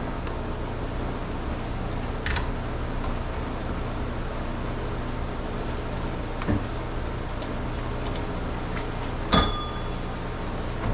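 Steady low machine hum with a few sharp metal clinks and clanks, typical of milking-machine units knocking as they are handled. The loudest clank, about nine seconds in, rings briefly.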